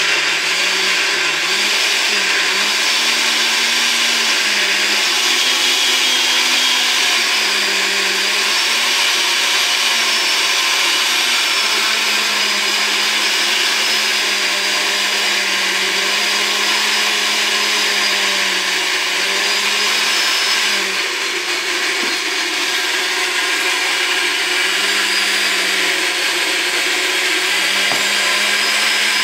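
Countertop jug blender running continuously, blending soaked chickpeas and water into houmous paste. Its motor pitch wavers throughout and dips briefly about two-thirds of the way in.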